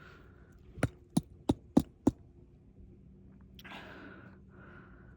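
Five sharp metallic knocks from a cheap ratchet under abuse, about three a second, followed by a couple of breaths.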